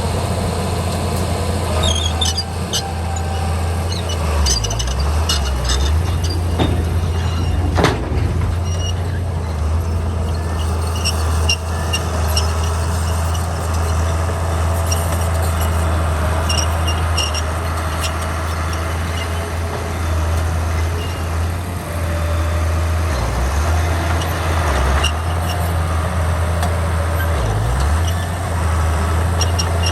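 Heavy diesel engine of a Komatsu D41P crawler bulldozer running steadily under load as it pushes fill, with scattered metallic clicks and squeaks and a sharp knock about eight seconds in.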